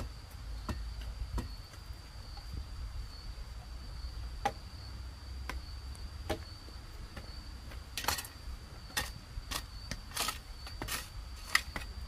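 Hoe blades striking and scraping into dry, stony soil: a few light knocks early on, then a run of heavier strokes about one every half-second to second in the second half. A steady, high-pitched insect drone runs underneath throughout.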